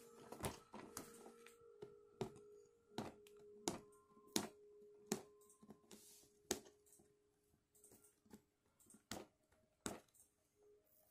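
Cardboard figure box being handled and turned over in the hands: a series of light, irregular taps and clicks from fingers and nails on the box.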